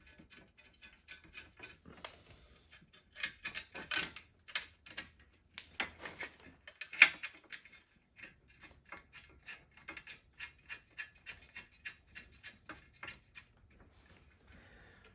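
Light metallic clicks and clinks of bolts being fitted into the mounts of a motorcycle engine guard, a few per second, with a few louder knocks of metal on metal a few seconds in.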